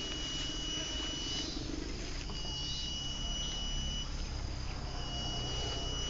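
Small MP3 player speaker playing a bird-call lure: a high, steady whistle held about a second and a half, three times with short gaps. The player's battery is running low.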